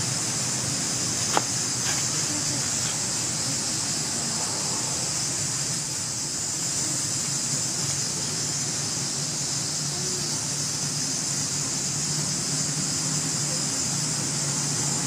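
Steady high-pitched drone of insects, with a low steady hum underneath and one sharp click about a second and a half in.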